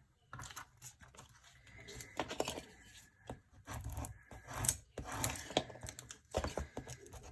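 Transfer tape being peeled off permanent adhesive vinyl lettering (Oracal 651): a run of short, irregular tearing and crackling strokes.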